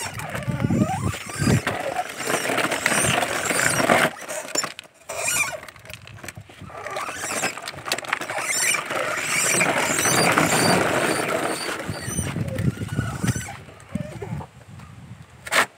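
Child's plastic pedal car rolling over a gritty concrete path: hard plastic wheels grinding on the grit, with high squeaks from the car, fading near the end.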